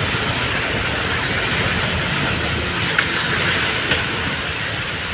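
A bus travelling at speed: a steady rumble of engine and road noise with hiss, and two short sharp rattles about three and four seconds in.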